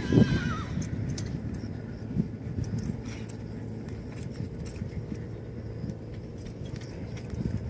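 Quarter Horse mare loping and turning on soft arena dirt: muffled, irregular hoofbeats with light jingling of tack, over a steady low rumble.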